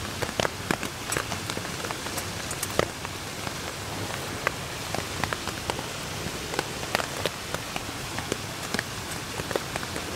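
Rain pattering on a silnylon poncho tarp overhead: a steady hiss broken by many irregular sharp drop taps.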